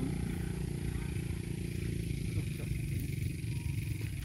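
A motor running steadily, a low even rumble.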